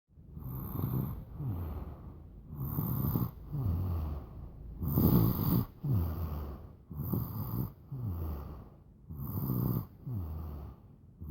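A baby snoring in sleep: a rough snore on each breath in and on each breath out, about five breaths at a steady pace of one every two seconds or so, each out-breath falling in pitch.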